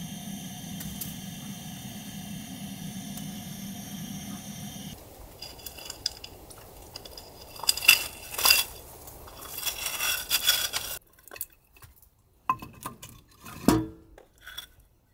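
A steady drone of even tones for about five seconds, then a run of light knocks and clinks. After an abrupt drop to quiet, pieces of split firewood knock together as they are picked up from a stack under a wood stove.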